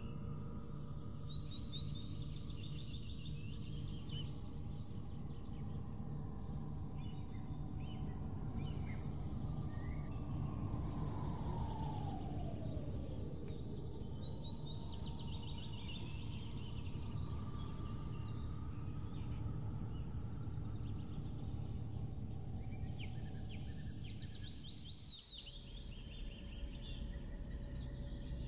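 Ambient background soundscape: a steady low drone with held tones, one slow downward-gliding tone midway, and short bursts of bird chirping three times, near the start, in the middle and near the end.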